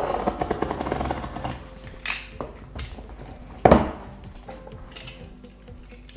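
Utility knife slicing through packing tape on a cardboard box, a rough rasping for about a second and a half, then cardboard flaps knocking and rustling as the box is pulled open, with one sharp knock near the middle the loudest.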